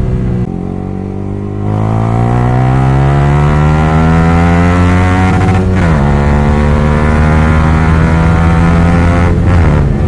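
Yamaha R15 V3's 155 cc single-cylinder engine through an open exhaust with its dB killers removed, pulling hard with the pitch climbing for several seconds. About six seconds in it drops sharply at an upshift, then holds steady revs, with another brief shift near the end.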